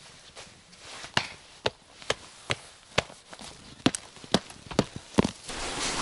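About ten sharp knocks, two or three a second, as a winter boot is banged to knock the snow off it. Near the end they give way to a steady rush of wind on the microphone.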